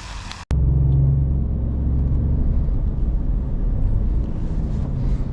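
Steady low rumble of a car's engine and road noise, starting abruptly about half a second in after a brief dropout.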